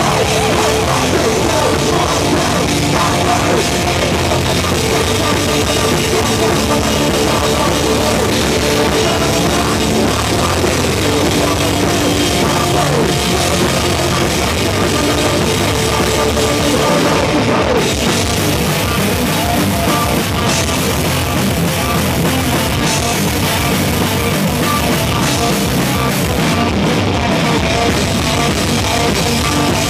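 A heavy rock band playing loud and live: electric guitars and bass over a drum kit, without a break. The drum beat comes through more plainly about two-thirds of the way in.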